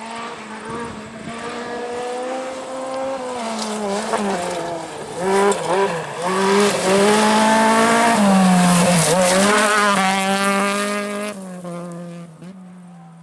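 Rally car approaching and passing at speed, its engine revving hard with several quick drops and rises in pitch as it shifts gear, loudest about two-thirds of the way through and then fading as it moves off.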